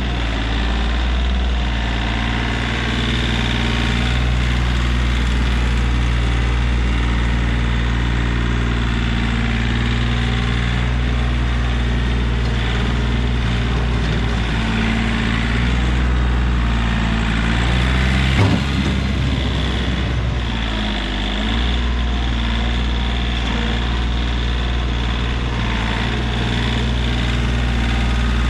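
Kioti CK3510 compact tractor's diesel engine running steadily while the front loader works. About two-thirds of the way through comes a single sharp clunk, and just after it the engine note dips and shifts briefly before settling back.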